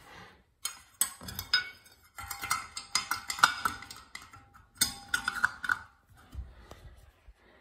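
Small chrome covers being pushed onto a toilet seat's mounting brackets on a ceramic toilet: a scattered run of light metallic clicks and short clinks.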